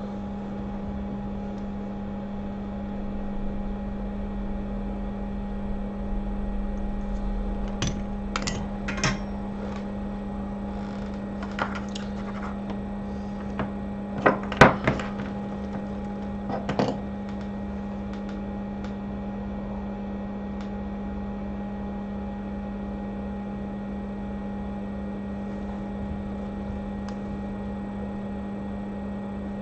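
Steady electrical hum of workbench equipment, with scattered light clicks and taps of hand tools, the loudest cluster about halfway through.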